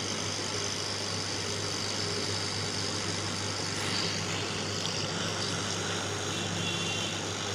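Hot air rework station blowing steadily onto a circuit board, heating a surface-mount diode array to desolder it, with a constant low hum underneath.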